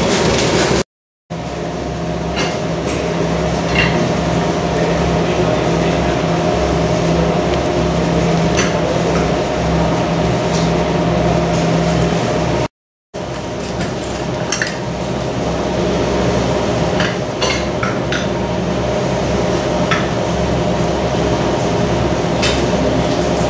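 Steady mechanical hum of workroom equipment, with scattered light clicks and clinks from small hand tools on workbenches. The sound cuts out completely twice for a moment, about a second in and about halfway through.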